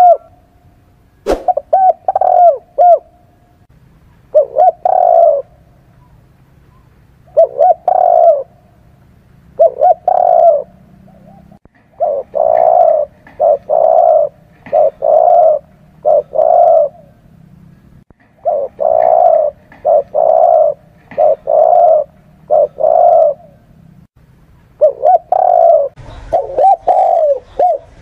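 Spotted dove cooing: short phrases of a few low coos repeated every couple of seconds, running into a quicker string of coos in the middle. A single sharp click sounds about a second in.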